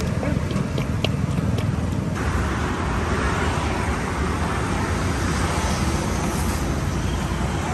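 Steady rumble of road traffic, with a few sharp clicks in the first two seconds and a louder hiss that comes in about two seconds in and stays.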